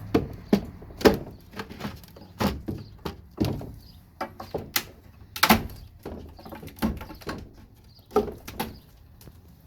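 Wooden beehive frames and boxes being pried apart and handled: a run of irregular sharp knocks and scrapes, more than a dozen in all.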